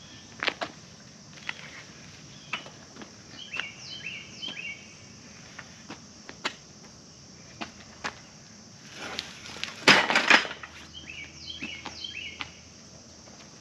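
Scattered knocks and clicks from handling the frame and net of a large football QB net during assembly, with a louder rustling clatter about ten seconds in.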